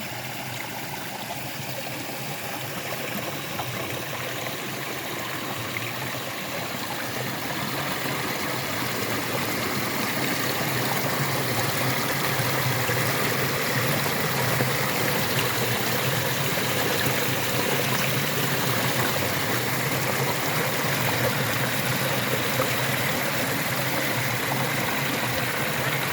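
Steady rush of a stream flowing at the head of a waterfall, growing louder over the first ten seconds or so and then holding steady.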